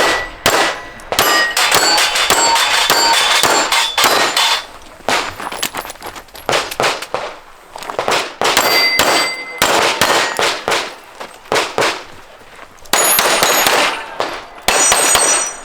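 A pistol fired in quick strings of shots, the hits ringing out on steel plate targets, with short pauses between strings.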